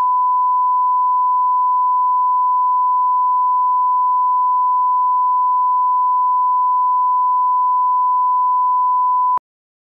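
Broadcast line-up test tone: a single steady pure tone, the audio reference that accompanies colour bars, cutting off suddenly near the end.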